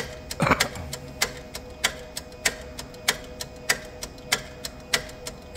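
Mimaki CJV150 wide-format inkjet printer clicking steadily during its initial ink fill, a sharp click about every 0.6 s with fainter ticks between, over a faint steady hum. A brief falling whine sounds about half a second in.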